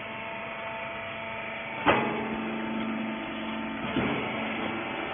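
Rag baler machine running with a steady mechanical hum. A sharp clunk comes about two seconds in and a smaller one near four seconds.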